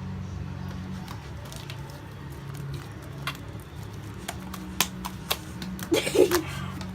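Slime being squeezed and worked by hand: scattered short wet pops and clicks, getting more frequent, with a louder cluster near the end, over a steady low hum.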